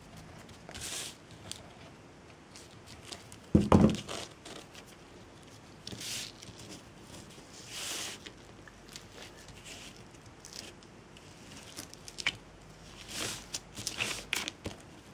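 Jute twine being handled and worked onto a glued piece: scattered soft rustles and scrapes, with one loud thump a little under four seconds in.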